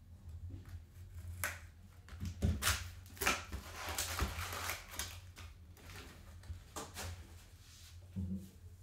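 A trading-card hobby box being opened by hand: cardboard lid and flaps handled, then the wrapped card packs rustling as they are pulled out and set down on a table. There are several sharp taps and clicks, with a stretch of rustling in the middle.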